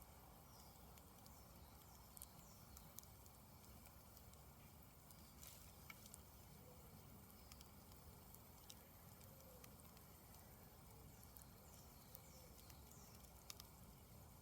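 Faint crackle of a campfire burning down, with scattered small pops and ticks over a low hiss. Faint short chirps come and go in the background.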